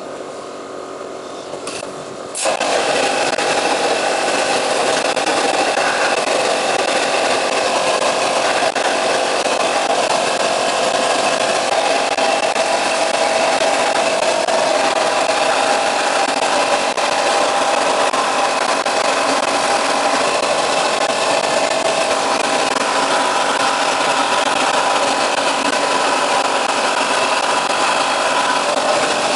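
Wet blasting cabinet's gun spraying a water-and-abrasive slurry with compressed air onto a two-stroke piston: a loud, steady hiss that starts suddenly about two seconds in, after a quieter running hiss.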